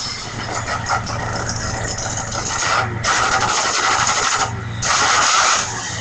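A phone ringtone that plays a recording of an engine running, a steady low hum under a rough, noisy sound that swells twice.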